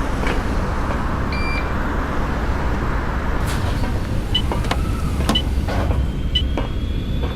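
Inside a moving double-decker bus: steady engine and road rumble with scattered short rattles and knocks from the bodywork. A faint rising whine starts near the end as the bus picks up speed.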